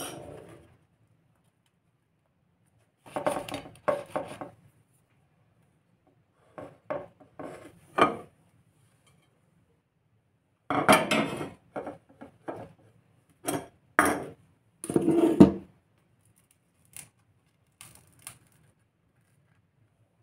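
Metal teaspoon scraping and clinking against dishes, and plates and bowls being handled on a table. It comes in about five short bursts of clatter with quiet gaps between; the loudest are around the middle and two-thirds of the way in.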